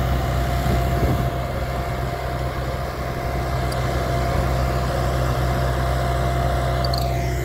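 UTB 650 tractor's diesel engine running steadily while pulling an SPC 6 pneumatic corn planter, with a steady high whine over the low engine drone.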